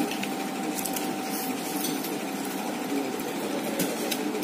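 Steady restaurant room noise: a constant mechanical hum with a faint steady whine, and a few faint clicks.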